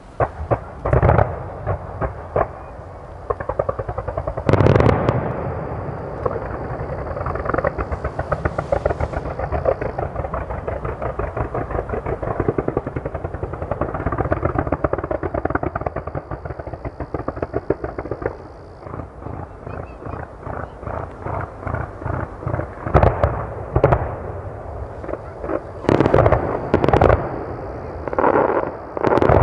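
Aerial fireworks display: shells bursting with loud bangs. A fast, unbroken run of small reports fills the middle stretch, and clusters of heavier bangs come near the end.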